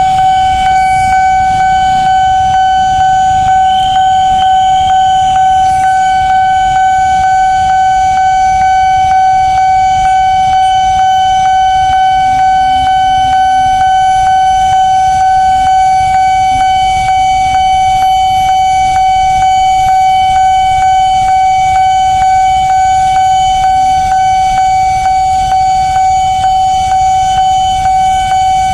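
Railway level-crossing warning alarm sounding one unbroken high electronic tone, the signal that a train is approaching and the barriers are down. Under it is the low rumble of idling motorbike and auto-rickshaw engines waiting at the crossing.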